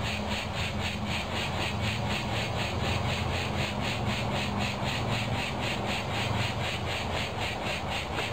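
Insect chorus pulsing evenly about five times a second, high-pitched, over a steady low hum.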